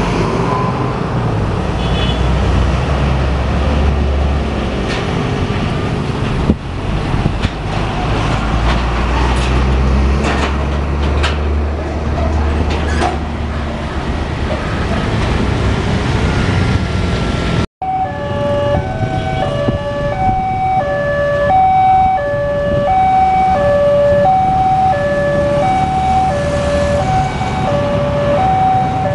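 Road traffic passing, with the diesel engine of a heavy container lorry rumbling by. After a cut about two-thirds in, a railway level-crossing's electronic alarms sound, two alarms with different tones ringing together, each repeating a steady high-low two-note pattern.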